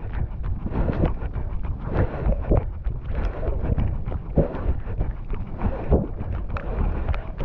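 Wind buffeting the microphone of a camera carried while running, with the runner's footfalls as irregular knocks through it.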